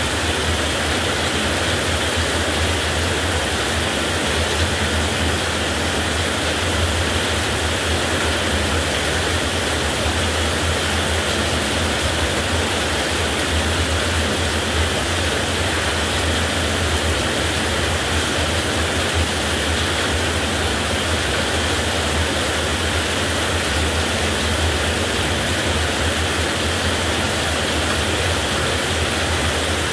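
Heavy rain falling steadily, a dense, even hiss with a steady low rumble underneath and no distinct thunderclaps.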